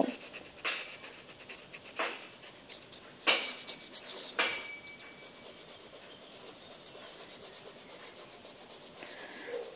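Four short scratching strokes on paper, about a second and a quarter apart, followed by a faint steady hiss.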